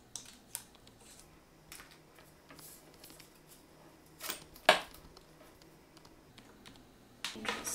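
A few faint metal clicks and taps as a small metal tool works the gold-tone metal clasp on a leather bag strap, with one sharp click a little under five seconds in. Handling noise from the strap and clasp picks up near the end.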